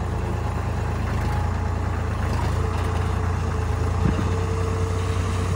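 Sonalika 35 DI RX tractor's diesel engine running steadily while the hydraulic tipping trailer lifts and dumps its soil. A faint steady whine joins about halfway through, and there is a single sharp knock about four seconds in.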